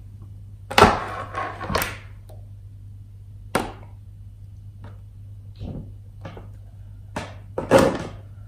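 Knocks and clunks from handling the opened all-in-one PC as its detached screen panel is shifted and set to rest behind the chassis. A clattering cluster comes about a second in, a single knock midway, light taps after it, and another loud cluster near the end.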